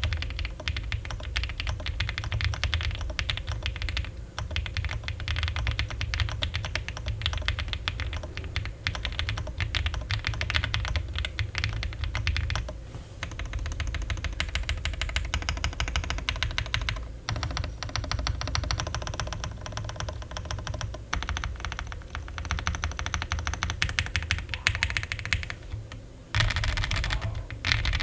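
Fast, continuous typing on an OwLab Spring custom mechanical keyboard with lubed White Jade tactile switches, an FR4 plate with only plate foam, ABS keycaps and an aluminium case. The keystrokes come in a dense, even stream with a brief pause about halfway through and another near the end.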